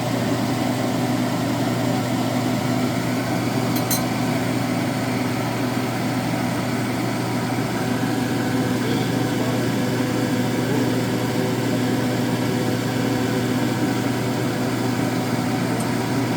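A steady machine hum: one low tone with its overtones, unchanging in level. A faint click about four seconds in.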